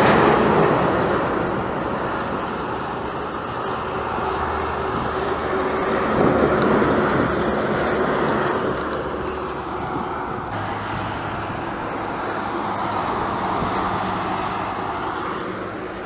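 Motorway traffic: cars and lorries passing below on a multi-lane highway, a continuous rush of tyre and engine noise that swells and fades as vehicles go by, loudest at the start and again about six seconds in.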